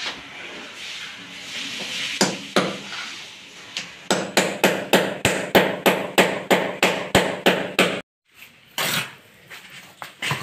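Ceramic countertop tiles being tapped down to bed and level them: two knocks, then a quick even run of hard knocks, about three a second, that cuts off suddenly.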